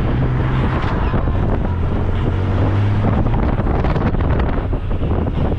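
Honda Gold Wing motorcycle running steadily at road speed, with heavy wind noise on the microphone.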